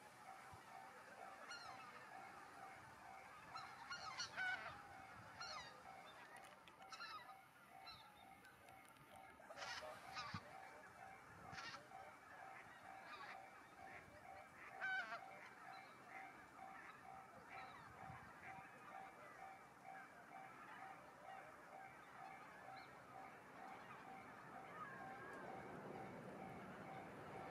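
A flock of geese calling faintly at a distance: scattered overlapping honks, a little louder about four and a half and fifteen seconds in.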